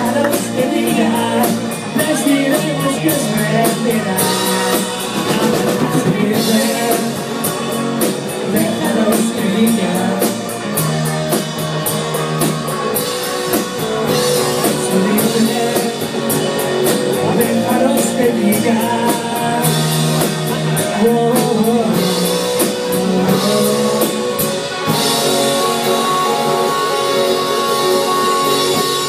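Live rock band playing a song: a singer over drum kit and electric guitars, with a steady beat. The cymbals wash louder near the end.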